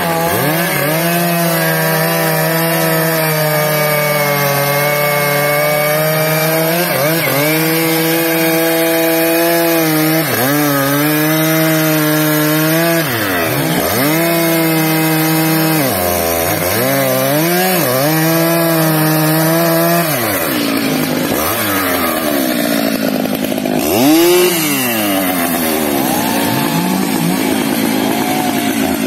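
Stihl MS 881 chainsaw, a 121.6 cc two-stroke, cutting through a teak log at full throttle. The engine note holds steady under load, then drops and recovers several times as the throttle is eased and reopened. About two-thirds of the way through, the revs turn lower and uneven, with a brief louder rev.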